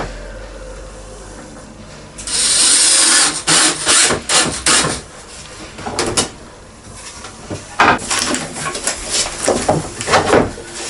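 Cordless drill-driver running in short bursts, driving screws to fix button-fix fixings onto a board: one longer run about two seconds in, then a string of brief runs and clicks.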